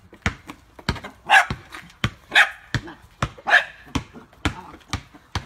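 A small dog barking again and again in high yelps, three loud ones about a second apart, while a basketball is dribbled on an asphalt driveway, its bounces sharp knocks about twice a second.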